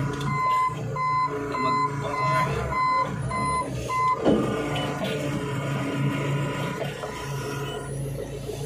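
Reversing warning beeper sounding in short, even beeps about twice a second, stopping about four seconds in, over the low steady running of a diesel machine's engine.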